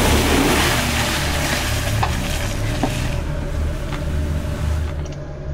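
Off-road vehicle's engine running with a steady low rumble, under a broad hiss that fades out about three seconds in.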